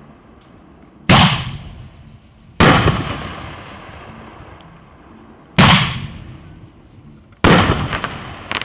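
Consumer fireworks cake firing: four loud bangs, each trailing off in a long echo. The first two come about a second and a half apart, and after a three-second gap the last two follow, as shells lift from the tubes and break in the sky.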